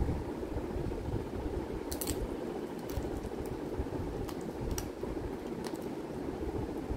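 A puppy chewing scraps of chicken, with scattered small sharp clicks of its teeth and mouth, over a steady low rushing background noise.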